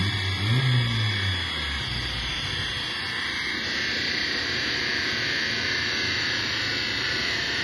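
Turbocharged Volkswagen Saveiro engine winding down after a dyno pull, with a short throttle blip that rises and falls in the first second and dies away by about two seconds in. After that a steady airy rush from the large dyno cooling fan continues.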